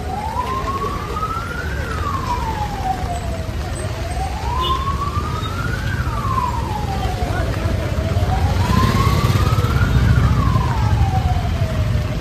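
Emergency vehicle siren in a slow wail, rising and falling about every four seconds, over the low rumble of street traffic.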